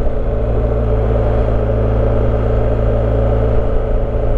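BMW R1250GS boxer-twin motorcycle engine running steadily while the bike cruises at about 30 mph, with road noise, as heard from the bike itself.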